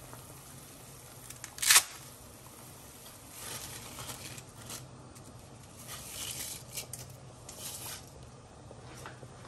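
Dry spaghetti being handled, dropped into a pot of boiling water and pressed down: brittle rustling and crackling in several short stretches, with one sharp crack about two seconds in. A faint steady hum runs underneath.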